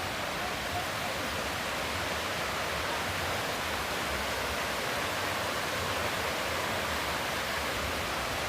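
Mountain stream rushing over rocks: a steady whooshing, rushing of water.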